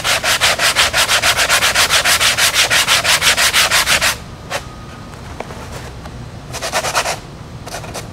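80-grit sanding pad rubbed quickly back and forth by hand over a spackle-coated model airplane wing, making rasping strokes about six a second. The strokes stop after about four seconds, a single tap follows, and another short run of strokes comes near the end.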